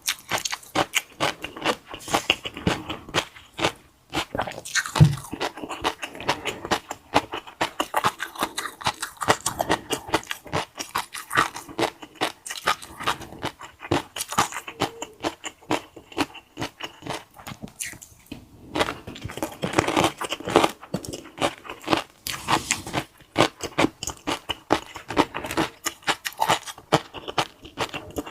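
Mukbang-style eating: chewing and biting crunchy food, with many irregular crisp crackles in quick succession.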